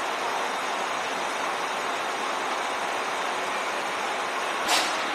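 Steady rushing background noise inside a Vande Bharat Metro coach, with one short sharp knock near the end.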